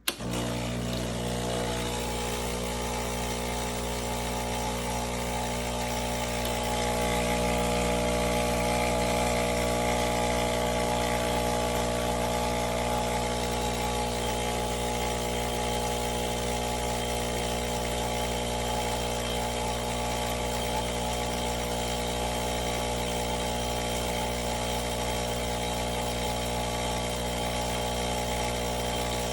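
Breville Dual Boiler espresso machine's vibratory pump switching on abruptly and buzzing steadily, getting slightly louder about seven seconds in.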